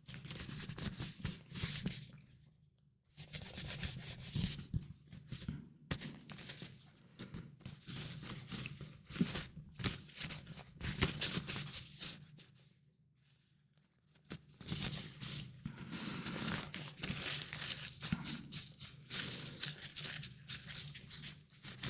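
A cleaning wipe rubbed and scrubbed over an iPhone 12's glass screen and sides in quick scratchy strokes, close to the microphone, stopping briefly twice.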